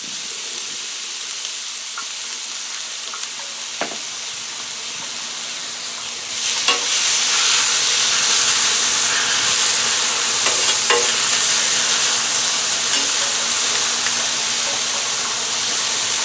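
Diced onion sizzling on a hot flat-top griddle. The sizzle gets louder about six seconds in as a metal spatula spreads the onion over the plate, with a few short scrapes and taps of the spatula on the metal.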